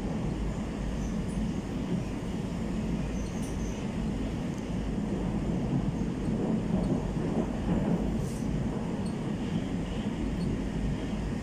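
Metro train of the 81-765/766/767 "Moskva" type running at speed through a tunnel, heard from inside the car: a steady rumble of wheels on rails and running gear.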